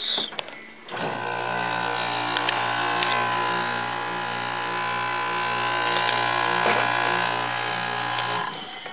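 Trash-picked dehumidifier switched on about a second in, running with a steady electric hum and buzz, then cut off shortly before the end.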